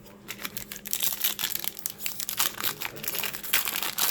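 Plastic booster pack wrapper being handled and crinkled, a dense run of irregular crackles.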